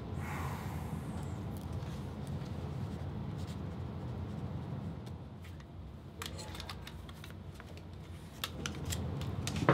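Pencil writing on paper held on a clipboard: faint scratches and small clicks, more of them in the second half, over a steady low hum.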